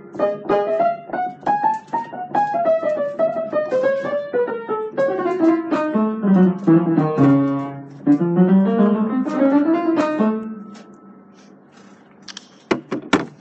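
Piano music: a run of quick notes whose melody winds downward, then climbs again, stopping about ten seconds in. A few sharp clicks follow near the end.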